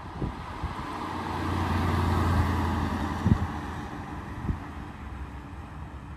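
Mercedes-AMG GT S with its twin-turbo V8 driving past at a steady engine note with tyre noise, swelling as it nears, loudest about two to three seconds in, then fading as it pulls away. A short thump sounds just after the loudest point.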